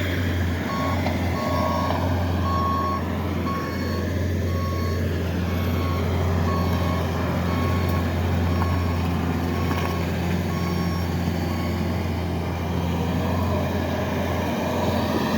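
Engine of a work vehicle running steadily while its reversing alarm beeps in an even, repeating train.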